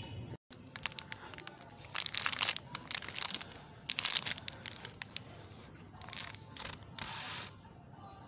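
A tyre rolling over and pressing down on two coins on a stone floor, making a string of crunching, scraping and clicking noises, with louder bursts about two, three and four seconds in.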